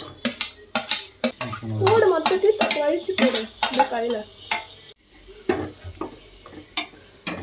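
Perforated steel ladle scraping and clinking against an aluminium pressure cooker as chopped tomatoes and green chillies are tipped in from a steel plate and stirred into frying masala, with sizzling underneath. Repeated sharp knocks of metal on metal.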